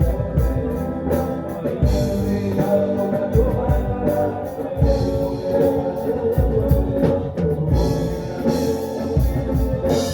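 Rock band playing: drum kit and guitar, with a voice singing.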